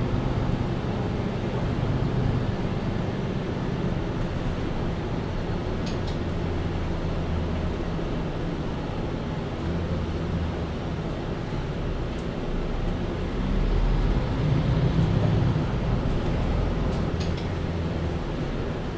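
MAN Lion's City Ü (A20) city bus running under way, its diesel engine droning steadily and shifting in pitch, louder and pulling harder for a couple of seconds about two-thirds of the way through.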